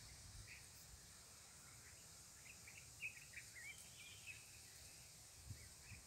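Faint open-country ambience: a steady high hiss with a few faint, short bird chirps clustered about halfway through.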